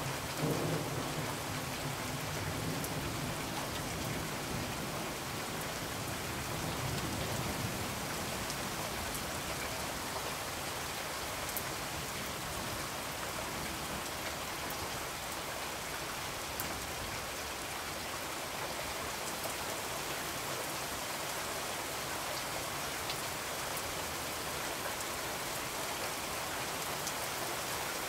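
Steady hiss of noise like falling rain, with a few faint ticks and a soft low rumble in the first several seconds.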